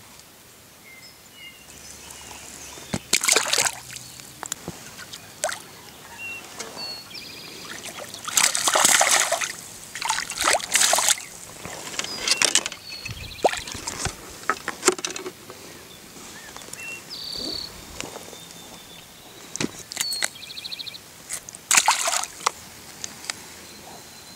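Pond water splashing and sloshing in several short bursts, the loudest about nine, eleven and twenty-two seconds in, with a few faint high chirps between them.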